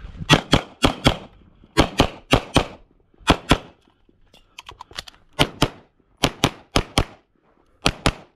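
Rapid pistol fire from a CZ Shadow 2 in 9mm: about eighteen shots, mostly in quick pairs (double-taps), with a pause of about two seconds near the middle that holds only light clicks.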